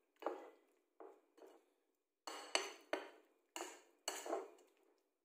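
A utensil stirring chicken pieces in a mixing bowl, coating them in cornstarch and breading mix: about seven short, irregular scrapes and clinks against the bowl.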